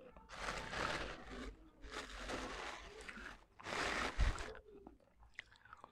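Close-miked chewing of broken baked-clay pot shards: three spells of gritty crunching.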